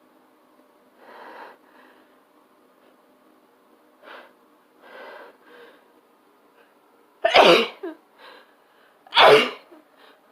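A person sneezing twice, loudly, about two seconds apart, after a few quieter breaths building up to it.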